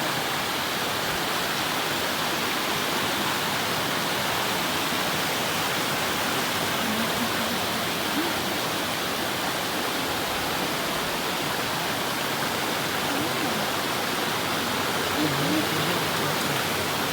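Mallyan Spout waterfall pouring: a steady, unbroken rush of falling water.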